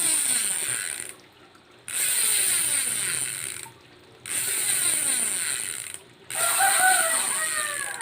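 Speedone Soldier rear hub's freehub ratcheting as the cassette is spun by hand, four times in a row. Each spin starts with a sudden loud buzz of pawl clicks that slows and fades as it coasts down, with short pauses between spins.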